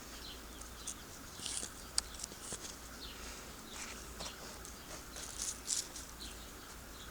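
Hands scraping and pressing loose potting soil in a pot: short, scattered scratchy rustles, with a couple of small clicks.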